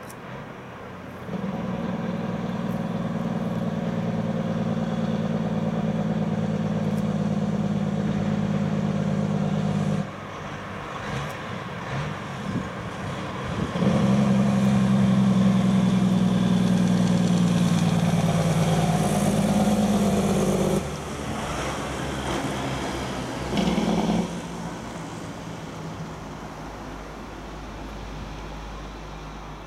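Diesel engine of a heavily loaded off-highway log truck pulling past. The engine note drops off about a third of the way in, as in a gear change, then comes back louder. It cuts back again past the middle, with one short burst, and fades away as the truck goes by.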